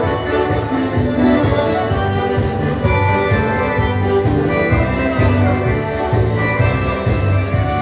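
Live band playing dance music with a steady beat and sustained melody notes.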